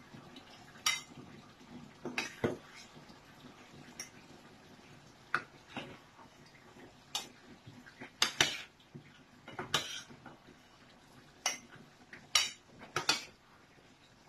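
Metal spoon clinking and scraping against a stainless-steel pot and a plate as food is served out: a dozen or so short, sharp clinks at irregular intervals.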